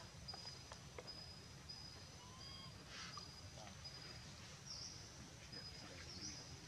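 Faint outdoor ambience: a high, thin chirp repeating about every three-quarters of a second over a low background hiss.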